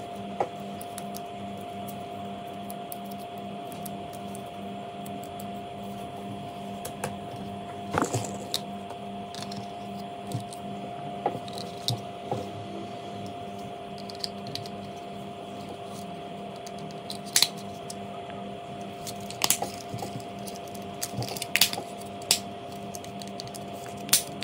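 A steady hum with scattered sharp clicks and taps, more frequent in the second half.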